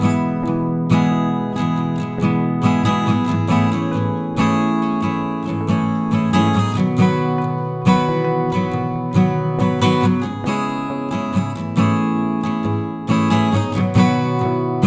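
Background music: strummed and plucked acoustic guitar playing a calm, steady piece.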